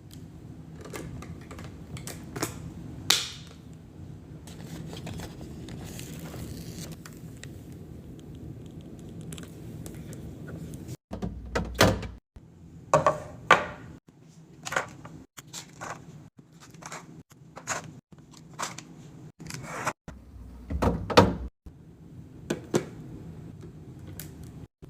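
Food containers and items being handled and set down while a fridge is restocked: a series of thunks, clicks and knocks. They are sparse at first and get louder and more frequent about halfway through.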